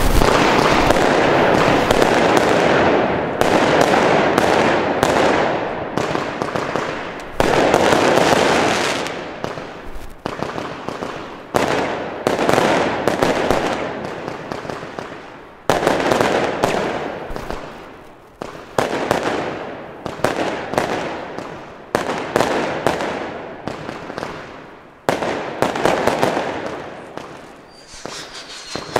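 Consumer aerial fireworks launching and bursting one after another in a steady volley. Each sudden bang fades away before the next, about one every one to two seconds.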